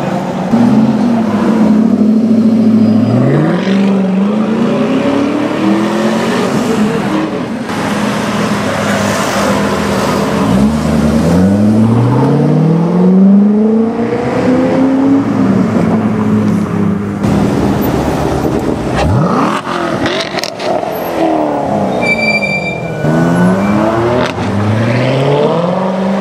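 Several Chevrolet Corvette V8s (C6 and C7) accelerating hard one after another, each engine's pitch climbing and dropping back at the gear changes. A sharp rev rises steeply about two-thirds of the way through.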